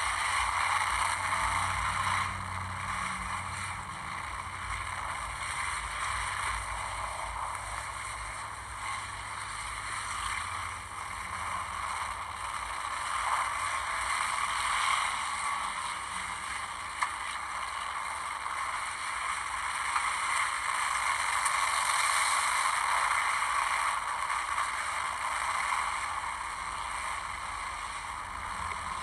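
Enduro race cars' engines running together as the field circles the oval, a steady blended drone that dips a little early on and swells again about twenty seconds in.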